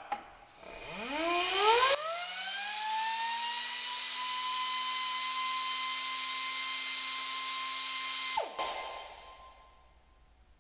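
Pneumatic die grinder on an air hose: a click at the start, then it spins up with a rising whine, runs at a steady high whine for about six seconds, and is let off and spins down near the end.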